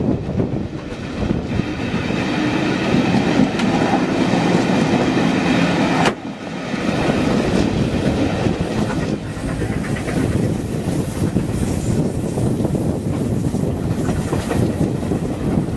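Passenger train hauled by the steam locomotive 6233 Duchess Of Sutherland, heard from a carriage window: continuous running noise of the train climbing a steep gradient. About six seconds in there is a sharp click and a sudden dip in the noise before it picks up again.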